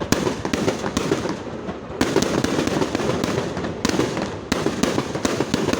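Fireworks going off in rapid succession: sharp bangs, several of them louder, over continuous dense crackling.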